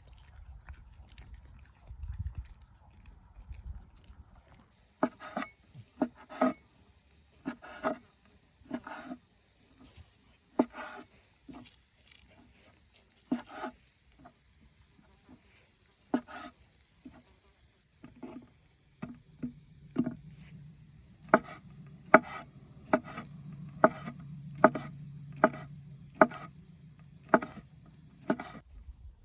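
A series of sharp knocks, irregular at first and coming about one to two a second in the last third, over a faint low hum that starts about two-thirds of the way through.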